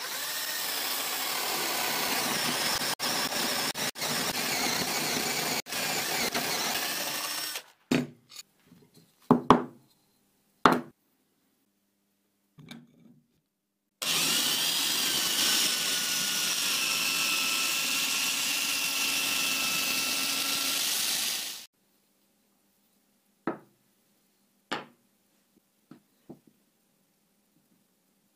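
Power drill with a spade bit boring into a wooden block, running steadily for about eight seconds. A few sharp knocks follow, then a second run of drilling for about seven seconds, with a few faint clicks near the end.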